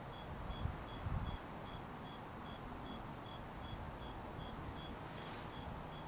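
Insect chirping in short, even pulses about two or three times a second, with a brief high buzz at the start, a few soft low thumps about a second in and a short hiss near the end.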